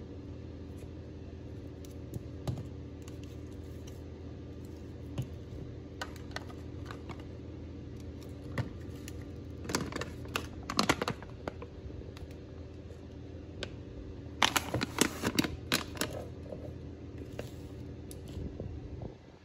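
Plastic and glass spice containers clicking and clattering as they are picked up and set down on a stone countertop, with scattered single taps and two busier bursts of clatter, about ten and fifteen seconds in. A steady low hum runs underneath.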